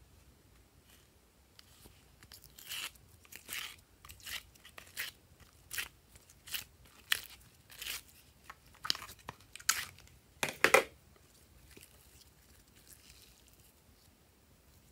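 Stiff plastic mould tray crackling and clicking as it is flexed and tipped to let pink slime peel out of it: a string of about a dozen sharp crackles, one or two a second, the loudest near the end.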